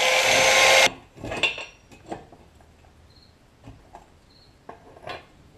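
Power tool grinding down a steel bushing, cutting off suddenly about a second in. It is followed by a few light metallic clinks and taps as the metal parts are handled.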